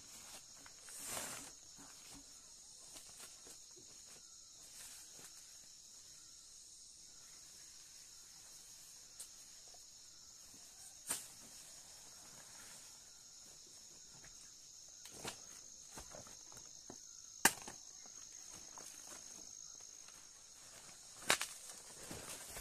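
Steady high-pitched insect chorus in thick undergrowth, with leaves rustling and a few sharp snaps and crackles as large leaves are picked and handled; the loudest snap comes about two-thirds of the way through.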